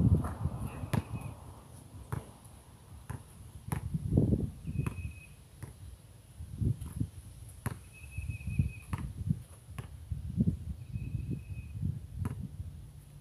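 Basketball bouncing and players' footsteps on an outdoor concrete court: scattered irregular knocks over low rumbling. A short high chirp comes about every three seconds.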